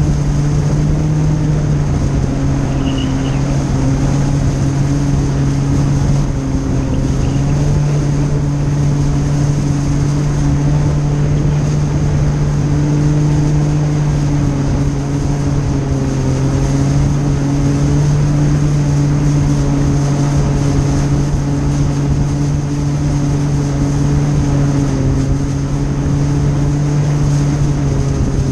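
Jet ski engine running steadily at cruising speed, its pitch holding nearly level, over a steady rush of water spray, heard from on board.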